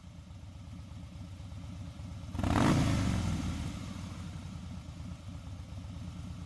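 Harley-Davidson Twin Cam V-twin idling warm in neutral, quickly revved to about a quarter to half throttle a little over two seconds in, then settling back to idle. The blip is a check of the new automatic clutch's free play.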